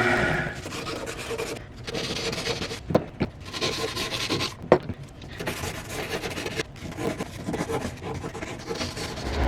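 Irregular rubbing and scraping strokes on the freshly brazed metal part, with a few sharp clicks about three and five seconds in.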